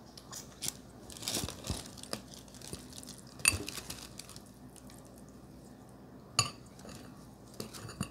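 Metal fork clinking and scraping against a glass bowl as noodles are stirred and lifted. The clinks are scattered, with quieter stretches between them; the sharpest comes about three and a half seconds in and another a little after six seconds.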